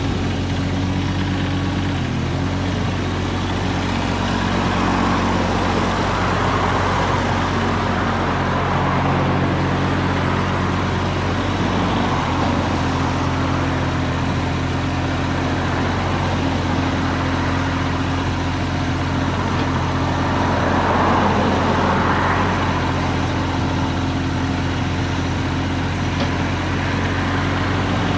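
Diesel engine of a Mitsubishi MM20CR mini excavator running steadily, with a few swells of hissy, higher-pitched noise over the engine.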